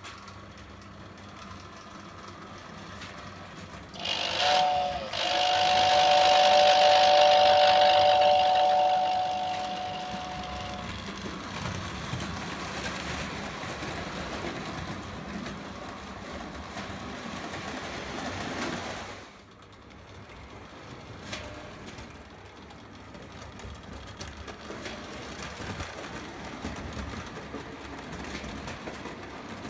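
Lionel O-gauge Hudson toy train running on tinplate track, a steady rumble and whine of motor and wheels. About four seconds in, the tender whistle blows for about six seconds: a loud, steady two-note chord over the hiss of its fan. The running noise drops sharply at about nineteen seconds.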